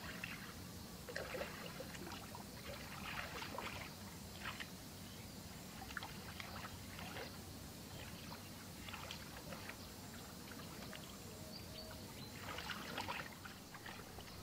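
Faint, irregular splashing and sloshing of shallow muddy water as hands grope through it, with a louder spell of splashing near the end.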